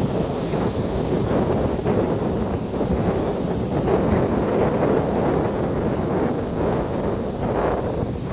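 Strong wind buffeting the microphone with a steady low rumble, over the wash of surf on a sandy beach.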